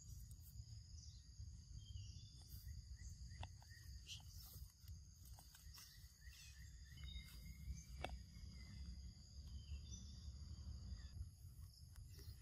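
Faint outdoor ambience: a steady high-pitched drone of insects, over a low rumble, with scattered soft clicks and rustles.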